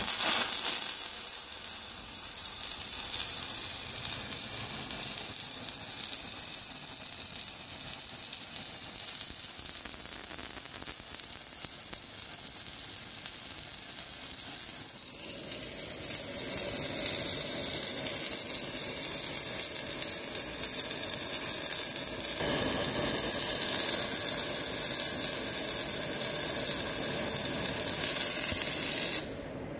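MIG welding arc burning metal-cored wire under shielding gas, running continuously as a weld is laid. Its tone shifts a little about halfway through and again later, and it stops abruptly just before the end.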